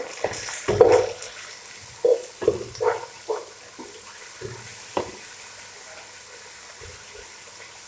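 Wooden spatula stirring and scraping sliced onions, ginger-garlic paste and green chillies frying in oil in a large non-stick pot. A run of irregular scraping strokes over the first five seconds, then only a soft, steady sizzle.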